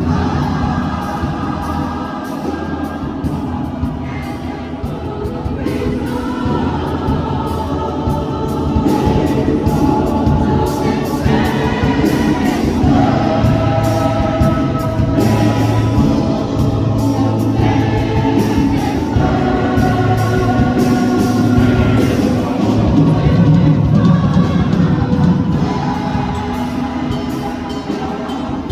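A choir singing live, several voices together in harmony, with sustained notes that change every second or two over a steady low line.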